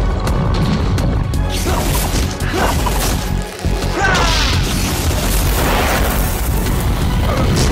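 Cartoon action music with sound effects laid over it: hits and crashes, and a few quick swooshes about halfway through.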